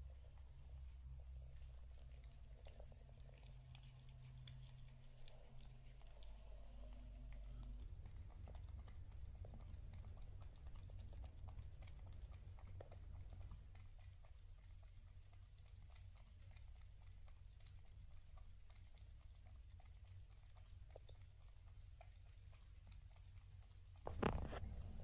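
A cat chewing its food: faint small clicks scattered over a low steady hum, with one louder knock near the end.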